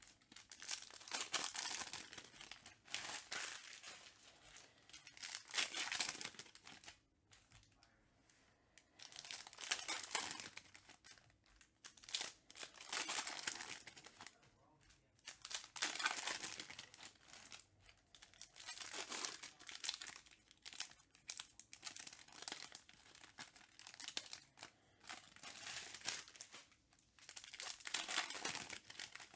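Trading-card pack wrappers crinkling and tearing as packs are opened and the cards handled. The sound comes in bursts of a second or two with short pauses between.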